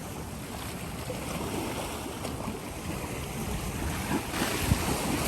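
Ocean surf and wind blowing across the microphone: a steady rushing noise that grows louder about four seconds in.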